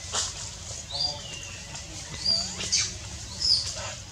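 Baby macaque crying with several short, high, thin squeaks and whimpers; one call about a second in falls slowly in pitch.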